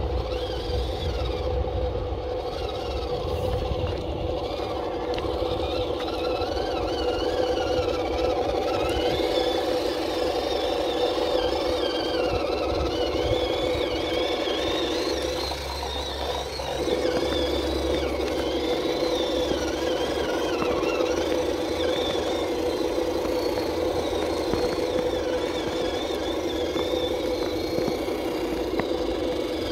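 Scale RC truck's electric motor and geared drivetrain whining under a steady lower drone, the whine wandering up and down in pitch with the throttle.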